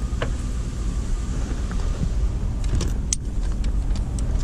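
Vehicle driving, heard from inside the cab: a steady low rumble, with a couple of sharp clicks or rattles.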